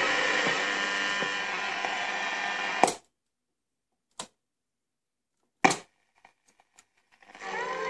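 VEF Spidola 230-1 portable radio playing through its speaker until a sharp click about three seconds in cuts the sound off. Two more clicks and a few faint ticks follow from its controls being worked over the silent stretch, then the radio's sound fades back in near the end.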